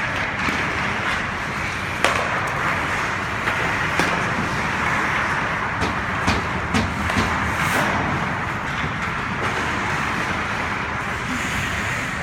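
Hockey game play: a steady hiss of arena noise broken by scattered sharp knocks of sticks and puck.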